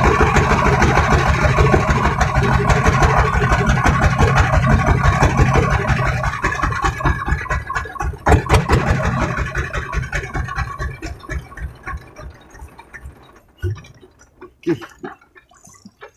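Diesel engine of a wooden outrigger fishing boat running with a fast, even chugging pulse, then fading out and stopping about twelve seconds in. A sharp knock sounds about eight seconds in, and a few scattered knocks follow once the engine has gone quiet.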